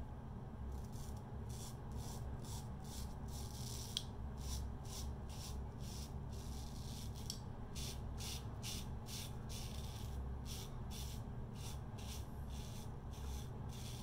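Gem Pushbutton single-edge safety razor with a Gem stainless blade scraping through lathered stubble in short strokes, about two or three a second, in runs with brief pauses.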